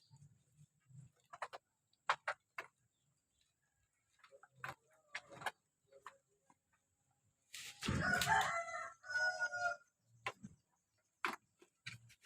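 A rooster crows once about eight seconds in, a long two-part call. Scattered short sharp sounds come before and after it.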